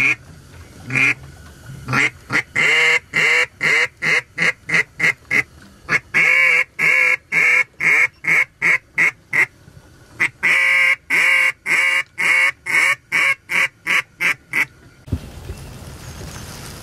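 A duck call blown by a hunter at incoming ducks: several long strings of loud quacks in a quick, even rhythm, with short pauses between the strings. The calling stops about two seconds before the end.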